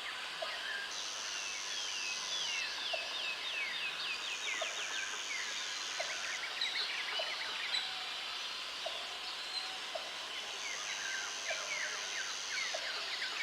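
Natural forest ambience: many birds chirping in quick falling trills, an insect's high buzz that comes and goes in stretches of a couple of seconds, and a short low note repeating about once a second.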